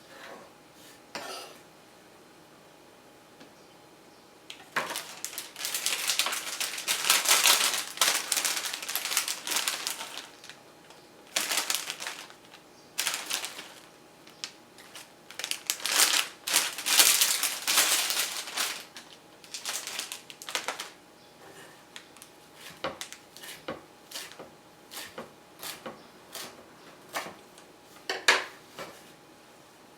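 Bursts of clattering and rustling from small hard objects being handled, thinning out after about twenty seconds into scattered single light clicks.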